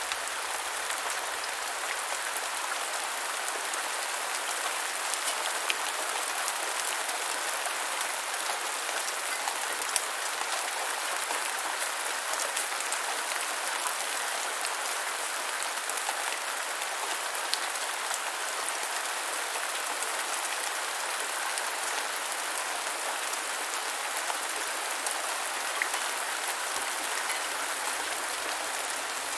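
Steady light rain falling, an even hiss dotted with the small ticks of individual drops hitting a surface.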